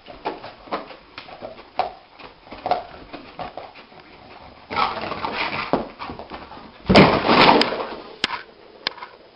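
A dog whimpering and giving short muffled yelps in its sleep, about once a second, while its legs paddle and scuff on the carpet. About seven seconds in there is a louder scrambling scuffle as it gets up.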